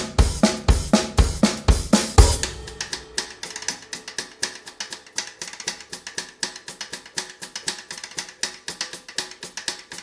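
Background music with a drum-kit beat. A heavy kick drum plays about twice a second, then drops out about two seconds in, leaving lighter, quick percussion over held notes.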